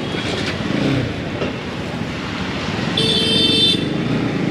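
Road and traffic noise from a motorcycle ride, with a vehicle horn honking once about three seconds in, lasting under a second.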